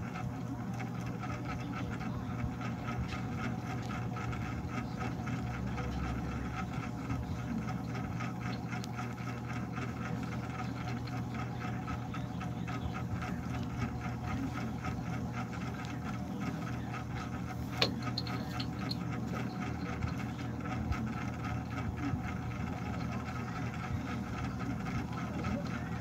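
Steady hum of a small motor with a fast, even flutter, and a single sharp click about two-thirds of the way through.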